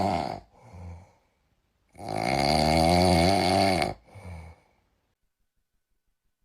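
Loud snoring: two snores with a wavering, rattling pitch, each followed by a short, quieter breath out. The second snore starts about two seconds in and lasts about two seconds.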